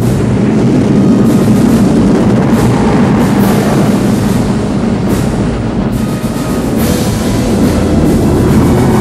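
Dramatic film score with pounding drums over a loud, steady rumble of a giant sandworm surging up through the sand.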